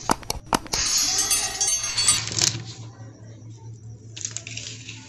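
Sharp metallic clicks and clinks of locking pliers and small metal model parts being handled, with stretches of hissing rustle.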